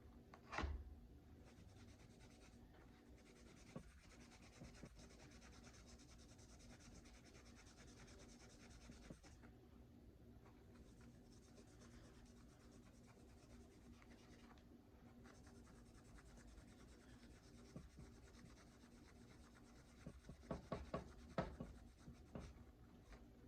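Scouring sponge scrubbing a Glock pistol barrel, a faint, steady rubbing that is stripping the vinegar-softened black finish off the metal. A knock sounds about half a second in, and a quick run of handling knocks comes near the end.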